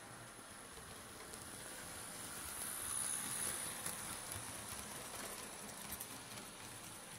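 Model train running on the track and passing close by: a rushing rattle of wheels on rail that swells to its loudest about three seconds in, with a few light clicks as the wheels run over the rail joints and points.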